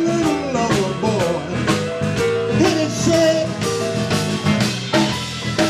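Blues band playing live: electric guitar with bending notes over bass and a steady drum beat.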